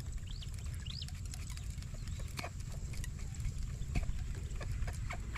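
Outdoor background with a steady low rumble, two short chirps rising and falling in pitch in the first second or so, and scattered light clicks that grow more frequent near the end.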